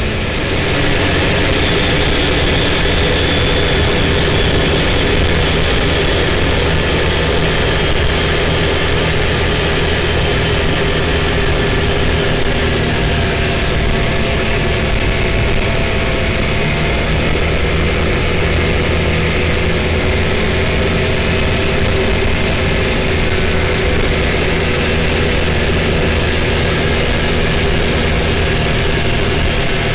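Can-Am Maverick X3 side-by-side's turbocharged three-cylinder engine running at a steady cruise, with tyre noise from the gravel road.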